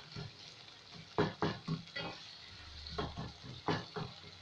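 Wooden spatula stirring and mashing tomatoes and onions in an aluminium pot, a series of short scrapes and knocks against the pot starting about a second in, over a faint sizzle of the frying mixture.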